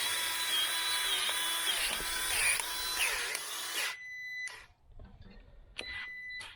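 Milwaukee M18 cordless grease gun motor running under load, its whine wavering as it pumps grease into a stiff fitting that the owner suspects is plugged. It stops about four seconds in and is followed by two short high beeps.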